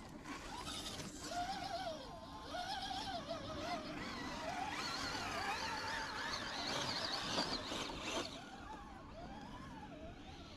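Electric motor and gearbox of a scale RC crawler truck whining, the pitch rising and falling with the throttle as it crawls over rough ground. It fades near the end.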